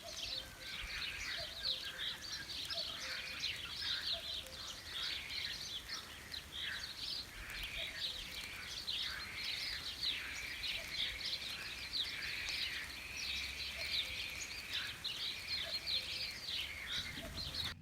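Many small birds chirping at once, a dense stream of short overlapping calls that stops suddenly near the end.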